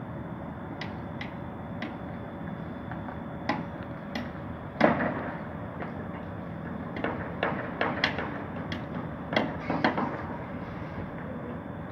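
Steady city background noise from the rooftops, broken by an irregular series of sharp knocks and bangs. The loudest is about five seconds in, and a cluster comes between about seven and ten seconds.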